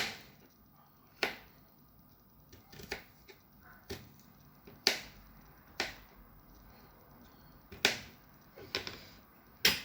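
Knife cutting garlic cloves into small pieces: a string of sharp single taps roughly once a second, unevenly spaced.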